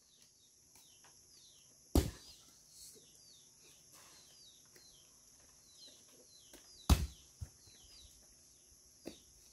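Two heavy thuds about five seconds apart and a fainter knock near the end, over a steady high hiss and small bird chirps.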